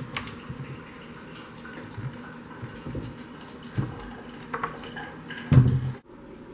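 Wooden kitchen cabinet doors being opened and handled: a few dull knocks and thumps over a low hiss, the loudest a little before the end.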